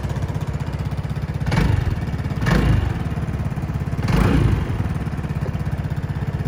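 2010 Vespa GTS 300 i.e. Super scooter's single-cylinder four-stroke engine idling steadily, with three short blips of the throttle in the first part, each rising and falling in pitch.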